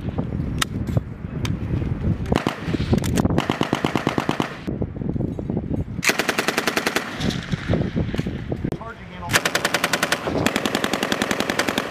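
M240B belt-fed 7.62 mm machine guns firing repeated bursts of about a second each, the shots rapid and evenly spaced, with scattered single shots between the bursts.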